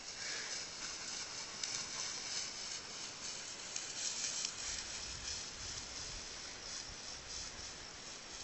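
Faint, uneven rustling of tall dry grass.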